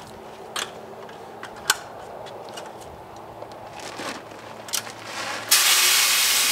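Shelled corn handled in its feed bag with a few scattered rustles and clicks, then, about five and a half seconds in, the corn suddenly pours into the metal feeder barrel as a loud, steady rushing hiss of kernels.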